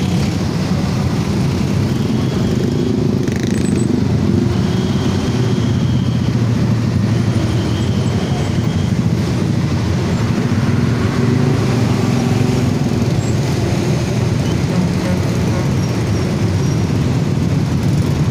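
Heavy traffic of many scooters and motorcycles running together, a steady low engine drone, with several short high-pitched beeps in the first half.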